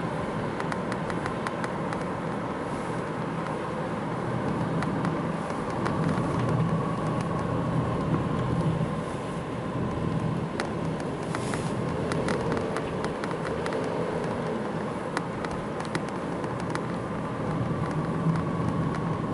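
Nissan X-Trail driving with steady road and running noise, and a faint whistle that slowly falls in pitch as the car slows, like a falling aerial bomb. The owner cannot explain the whistle; it comes on deceleration from 60 to 50 km/h whether the car is in 2WD or 4WD and in D or N.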